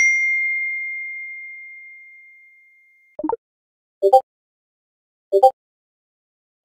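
Phone message notification chime: a single clear ding that rings out and fades away over about three seconds, followed by four short double-blip message pops over the next few seconds as chat messages are sent and received.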